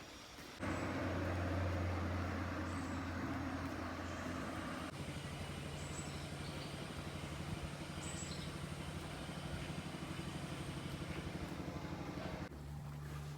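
Vehicle engine running at a steady note that steps up to a higher pitch about five seconds in.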